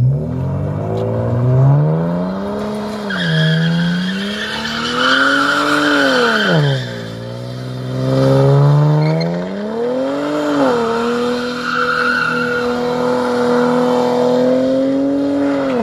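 Holden VZ Commodore V6 revving hard while skidding, the engine pitch climbing and dropping several times as the throttle is worked. The tyres squeal in two spells as they spin.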